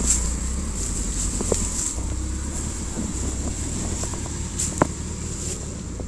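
Off-road 4x4's engine running with a steady low rumble that fades slightly, with a couple of faint knocks.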